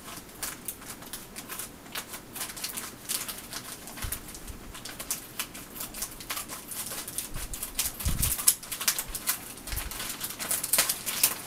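Crinkling, rustling and tearing of a mail envelope being opened by hand, with irregular crackles and a few soft thuds as the package is handled.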